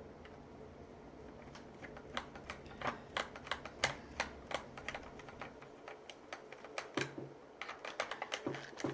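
Irregular light clicks and taps of reciprocating-saw parts being handled and fitted back together during reassembly, a few a second, beginning about one and a half seconds in.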